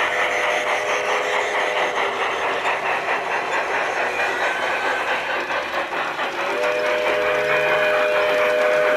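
G-scale model steam trains running on a garden railway, wheels clicking steadily over the track, with a model locomotive's sound-unit chime whistle held until about two seconds in and blown again, long, from about six and a half seconds in.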